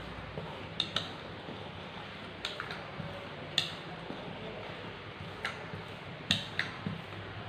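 Rolling pin clicking and knocking against a wooden board as dough is rolled out, a handful of irregular sharp taps over a steady low hum.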